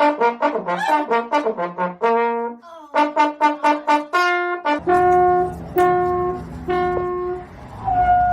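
A brass instrument plays quick runs of short, detached notes for about the first five seconds, then a few longer held notes with short gaps between them. A low rumble sounds underneath the held notes.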